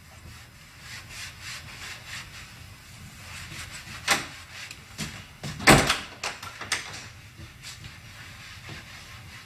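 Wooden knocks and rubbing from household handling of wooden cupboard doors and a house door, with two sharp knocks about four and six seconds in, the second the loudest.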